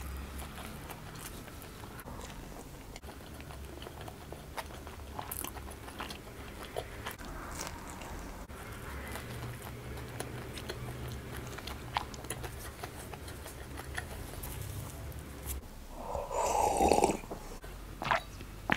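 Close-up mouth sounds of a person biting and chewing a slice of pizza: soft, irregular chewing with small clicks. A brief louder sound comes near the end.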